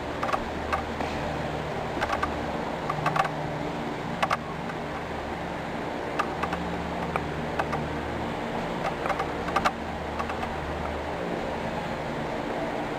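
Steady low mechanical hum, like building ventilation, with scattered light clicks and taps at irregular times.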